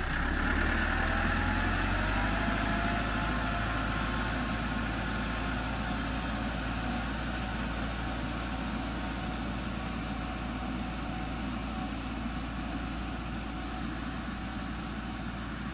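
Tractor engine running steadily under the load of pulling a zero-till seed drill, slowly growing fainter as it moves away.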